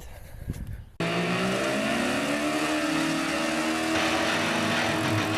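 Car engine running hard and revving, its pitch gliding up and down. It cuts in suddenly about a second in, after a short stretch of fainter handling noise.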